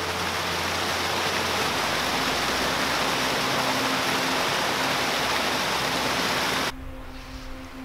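Waterfall and rocky creek rushing: a steady, dense hiss of falling and tumbling water that cuts off suddenly near the end. Soft sustained music tones sit underneath.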